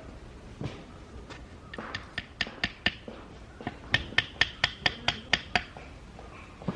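Metal tent stake being driven into the ground with a hammer: a run of sharp ringing knocks, about four a second, in two bursts with a short pause between.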